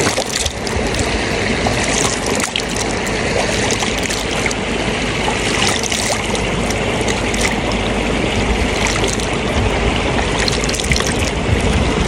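Canal water splashing and trickling close by, in many small splashes over a steady wash, as handfuls of water are scooped up and splashed onto a face.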